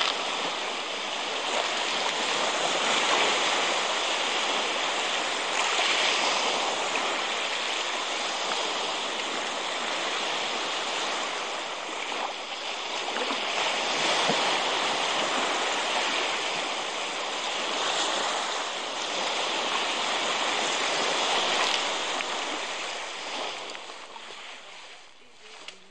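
Baltic Sea surf breaking on a sandy shore: a steady rush of waves that swells and ebbs every few seconds, fading out near the end.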